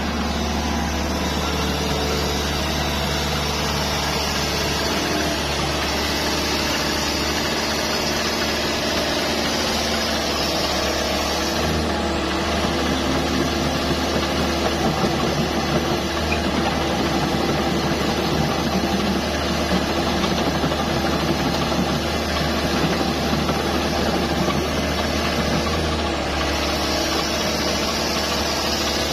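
Hitachi ZX110MF excavator's diesel engine running steadily, a little louder and rougher from about twelve seconds in until just before the end.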